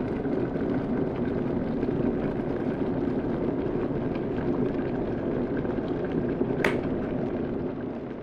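Water in a kettle at a rolling boil: a dense, steady bubbling rumble, with one sharp click about six and a half seconds in. The sound begins to fade near the end.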